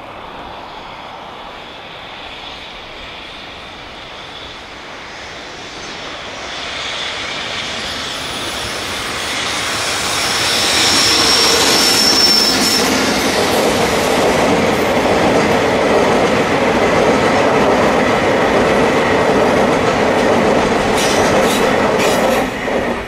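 Freight train of tank wagons hauled by an electric locomotive approaching and rolling past close by, its wheels clattering on the rails. It grows louder over several seconds, stays loud while the wagons go by, then drops away suddenly near the end as the last wagon clears. A brief high wheel squeal on the curve comes about eleven seconds in.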